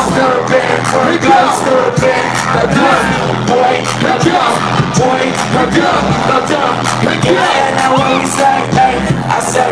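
Loud live hip-hop music over a club sound system, heard from within the crowd: a steady beat with voices over it and the crowd yelling.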